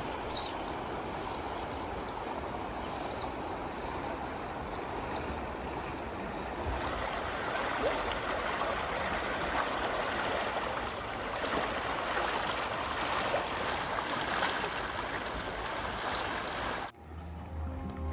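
Rogue River water rushing steadily, a little louder after about a third of the way in. It cuts off suddenly near the end, where music begins.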